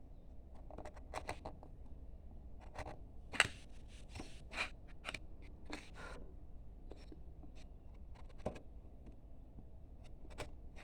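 Carving gouge, a No. 5 sweep 20 mm wide, pushed by hand through wood: a scatter of short, crisp slicing and scraping cuts, the loudest a little over three seconds in.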